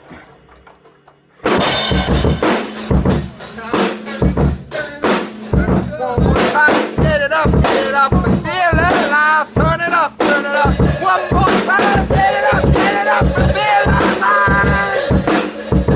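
Loud music with a drum kit, kicking in suddenly about a second and a half in after a quiet moment, with a wavering melodic line over the beat.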